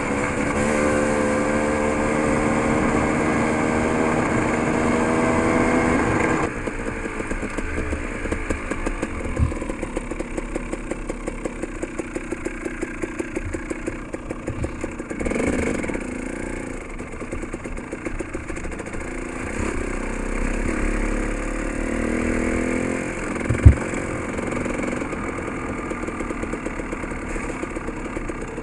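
Dirt bike engine running under throttle with its pitch rising a little, then dropping back abruptly about six seconds in to low revs with a fast, even firing pulse, picking up briefly again later. A single sharp knock sounds near the end.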